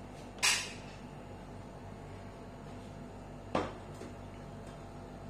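Two brief taps or clicks about three seconds apart as hands handle the Smart DPU milk-collection data processor, over a faint steady hum.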